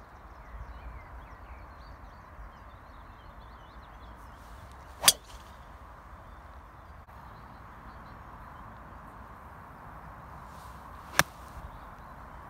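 Two golf shots: a driver strikes a teed-up golf ball with a sharp crack about five seconds in, and an iron strikes a ball with a shorter, sharp click about six seconds later.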